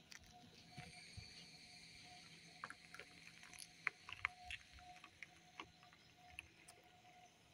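Faint outdoor ambience: a low steady hiss with scattered brief chirps and ticks.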